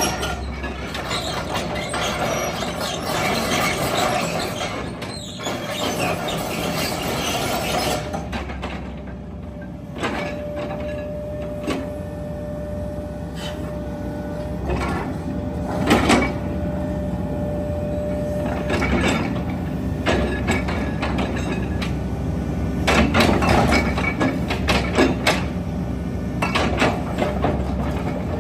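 Hitachi EX135 zero-tail excavator's diesel engine running steadily while the boom, arm and bucket are worked hydraulically, with a steady high tone for several seconds midway and sharp clicks and knocks at times.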